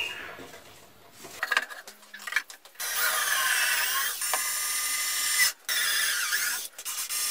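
Cordless drill-driver running into wood, in three runs: a long one of about two and a half seconds with its pitch bending as it works under load, then two shorter ones. A few knocks of boards being handled come before it.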